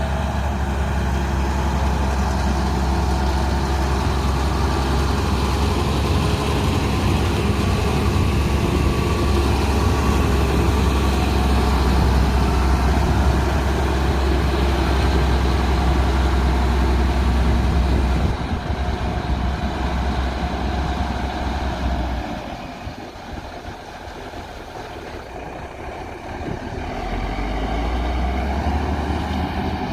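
Heavy diesel engine of a road-construction machine running steadily with a deep drone. It drops off about two-thirds of the way through, goes quieter for several seconds, and builds back up near the end.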